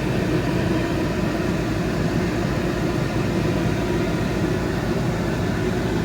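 Coleman Mach rooftop RV air conditioner running steadily, its compressor and blower giving a constant hum while drawing about 1,500 watts.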